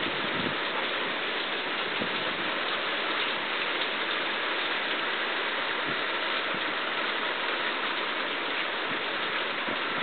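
Typhoon rain falling steadily on forest trees: an even hiss that never lets up.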